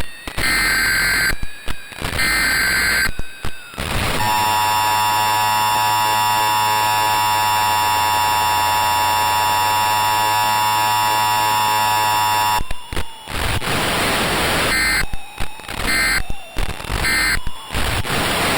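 Emergency Alert System tones. First come the last repeats of a SAME header's digital data bursts, then the two-tone attention signal held steady for about eight seconds. Static and three short end-of-message data bursts close the sequence.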